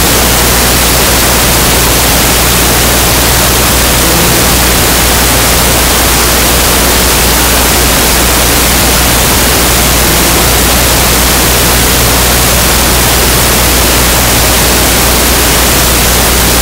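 Loud, steady static hiss across all pitches, with a low hum beneath it.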